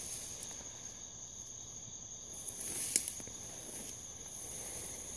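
Insects trilling in the field: one steady high-pitched drone, with a soft hiss swelling from about halfway and a single click about three seconds in.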